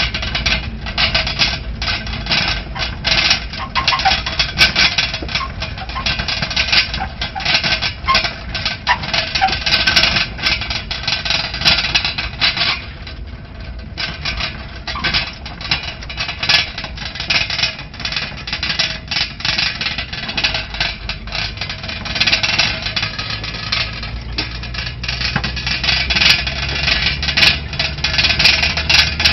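Small open off-road vehicle driving along a rough dirt track: the engine runs steadily under a constant clatter and rattle of the body and load as it jolts over the ruts. The rattling eases briefly about halfway through.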